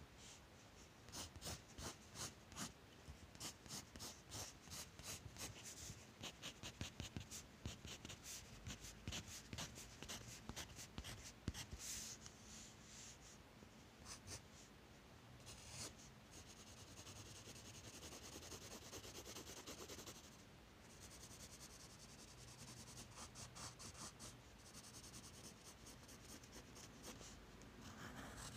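Faint scratching of a graphite pencil on paper as a drawing is shaded: first a long run of quick short hatching strokes, then, from about halfway through, steadier continuous shading strokes.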